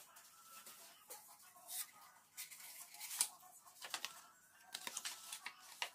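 Sheet of paper rustling and crinkling as it is handled and unfolded, in short irregular crackles.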